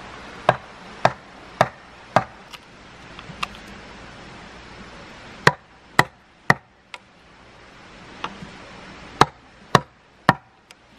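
Wood being chopped with a hand blade: sharp strikes about two a second, in three runs of four blows with short pauses between, and a few lighter taps.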